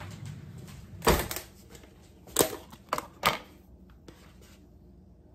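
A plastic whipped-topping tub and its lid being handled: a handful of sharp plastic clicks and knocks, the loudest a thump about a second in.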